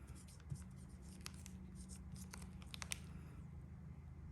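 Faint handling of a metal Zippo lighter: scattered small clicks and taps, a few of them close together around the third second, over a low steady hum.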